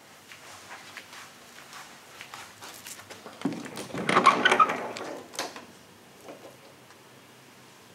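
A door with a brass knob being opened: a sudden clunk about three and a half seconds in, followed by about a second of rattling and scraping. Faint clicks and rustles of handling come before and after.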